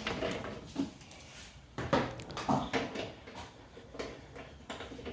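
Scattered clicks and knocks of plastic fender clips and trim being pried and handled on a car body.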